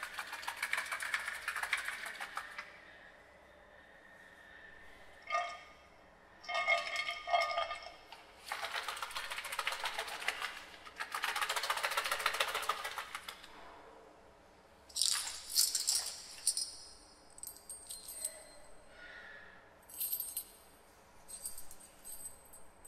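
Live improvised percussion: bursts of shaken rattling and clinking a second or two long, separated by quiet gaps, with small metallic strikes that ring on, and high thin ringing tones in the second half.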